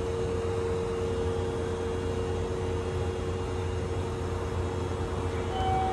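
Kintetsu 7020 series electric train standing at a platform with its doors open, giving a steady hum with a steady mid-pitched tone over it. A second, higher tone joins near the end.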